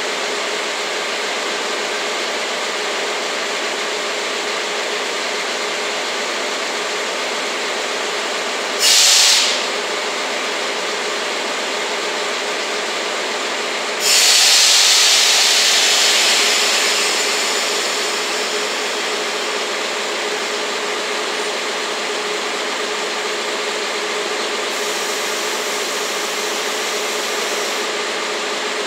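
DE10 diesel-hydraulic locomotive's V12 diesel engine idling steadily while compressed air is let off during the air-system function check: a short hiss about nine seconds in, a louder blast about fourteen seconds in that fades over several seconds, and a fainter hiss near the end.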